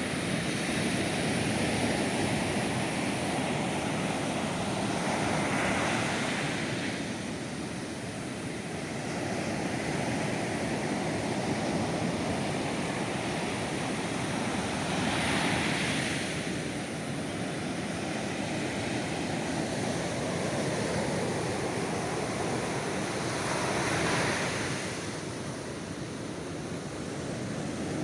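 Ocean surf on a beach: a continuous wash of waves, with a wave breaking and swelling louder about every nine seconds, three times.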